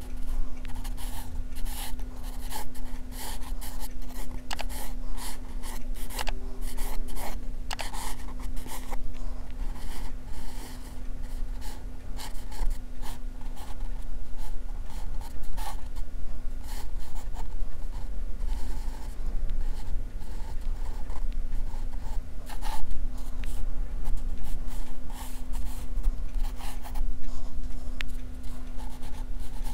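Pencil sketching on paper: many short, quick scratching strokes, over a steady low hum.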